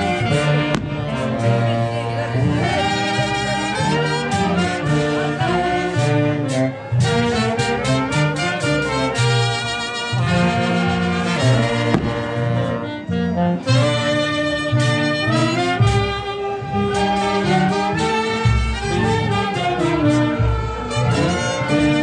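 Brass band playing a festive tune, with trumpets and trombones carrying the melody over deep bass notes.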